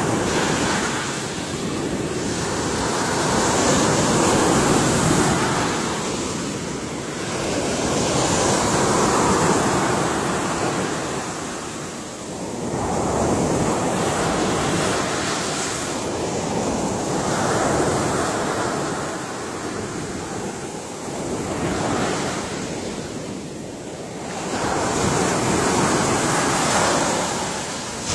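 Ocean surf: waves breaking and washing in one after another, the sound swelling and easing about every four to five seconds.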